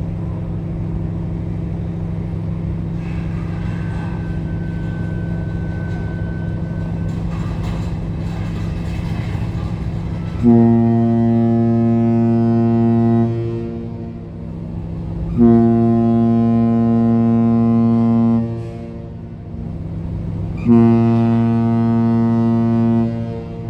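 A RORO ferry's ship horn sounds three long blasts of about three seconds each, one every five seconds or so, over a steady low engine drone.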